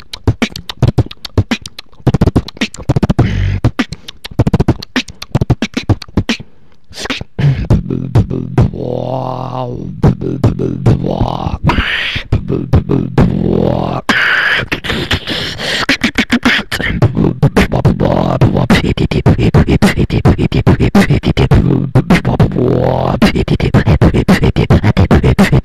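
Beatboxing performed over an online voice-chat connection. It starts with sharp, sparse kick and snare sounds. About seven seconds in, a held low bass hum comes in underneath, with rising and falling vocal sweeps over a dense, fast beat.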